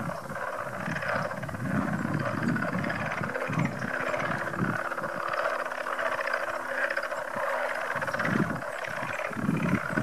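Dense chorus of many frogs calling at once, a continuous croaking din loud enough that from a distance it was taken for a flock of sandhill cranes or something mechanical.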